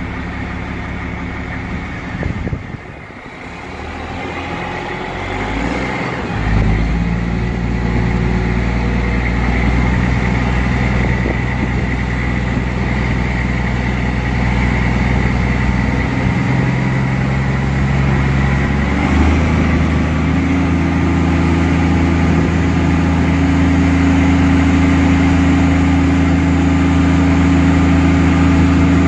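Caterpillar C12 inline-six turbo diesel engine of a Sterling L9500 truck running steadily. Its note changes abruptly about six seconds in and again about two-thirds of the way through, and it grows slightly louder.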